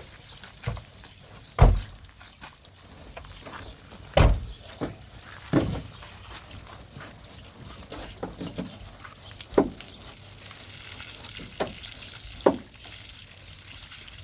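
A series of irregular thumps and knocks, about seven in all, with a couple of the loudest near two and four seconds in.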